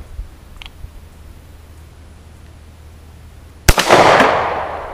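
A single shot from a Stallard Arms JS9 9mm pistol firing a solid brass bullet, about three and a half seconds in. A fainter crack follows about half a second later, then a long echo that fades away.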